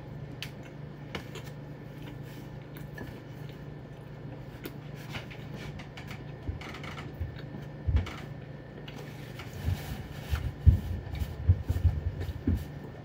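Chewing a mouthful of burrito, with small wet mouth clicks over a steady low hum. Near the end come a run of louder low thumps and rustles as a paper napkin is wiped across the mouth.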